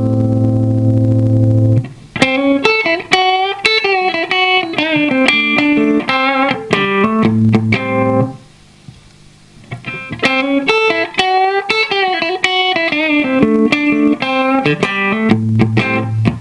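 Solo electric guitar played through a compressor pedal. It holds a low note, then plays quick single-note phrases with vibrato, pauses briefly about halfway, and plays more phrases before settling on a held low note near the end.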